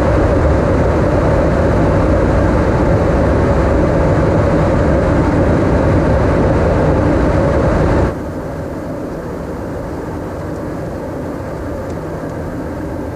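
Steady roar of an F-16D fighter jet in flight, with a constant hum running through it; about eight seconds in it drops abruptly to a quieter, steady roar.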